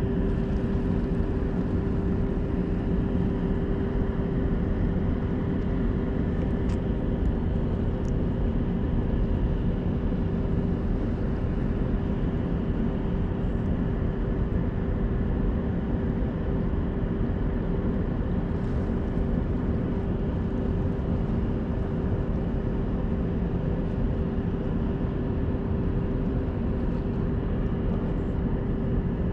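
Steady harbour ambience: a low rumble and hiss with a constant hum running through it.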